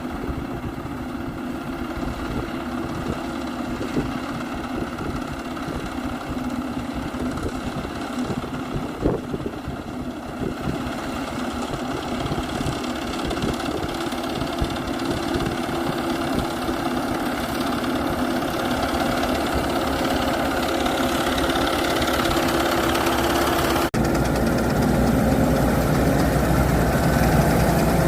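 Engine of a rice harvesting machine, most likely a combine harvester, running steadily and growing louder over the second half, with a momentary break about 24 seconds in.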